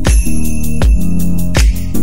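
Background music with a steady beat: a heavy low hit about every three-quarters of a second under held bass and chords and fast, even high ticks.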